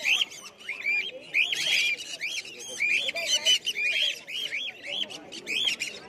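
A cage of budgerigars chattering: a steady stream of quick, overlapping short chirps that rise and fall, several a second, without a break.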